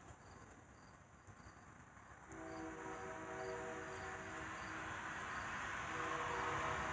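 Oil Creek and Titusville Railroad locomotive horn sounding faintly: a chord of several notes held for about two and a half seconds, then sounded again near the end. Under the second blast the rumble of the approaching train grows louder.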